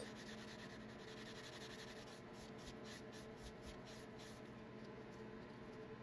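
A small brass plane screw cap being rubbed back and forth on a Scotch-Brite abrasive pad to polish it: a run of faint, quick rubbing strokes that stops about four seconds in.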